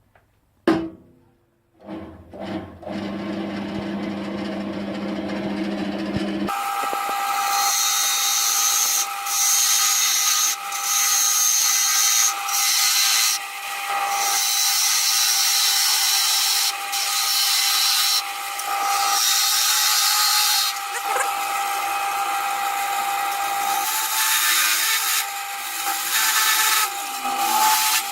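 A sharp knock, then a wood lathe's motor starting and running with a low hum. From about six seconds in, a chisel cuts into the spinning wood of the mallet head: a loud, steady hiss that breaks off briefly several times as the tool is lifted.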